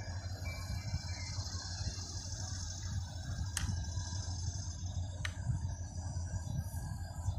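Steady high-pitched insect buzz over a constant low rumble, with two sharp clicks about three and a half and five seconds in.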